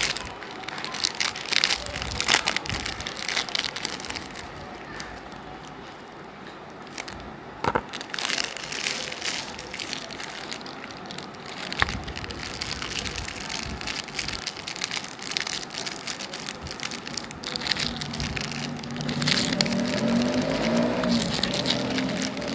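Plastic wrappers of Sooper biscuit packets crinkling and crackling in the hands, close to the microphone, in irregular bursts. Near the end, a pitched tune comes in underneath.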